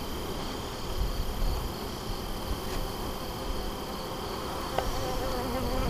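Honeybees buzzing around a freshly opened hive, with the wavering buzz of a bee flying close near the end.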